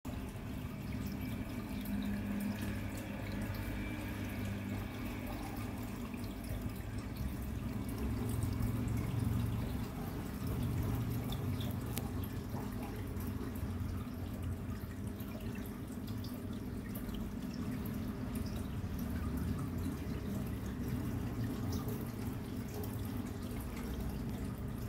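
Aquarium filter running: a steady low hum with water trickling and dripping, and faint small ticks throughout.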